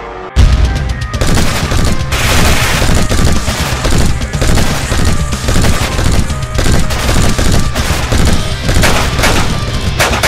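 Rapid gunfire, many shots in quick succession, breaking out suddenly about half a second in and running on densely, over background music.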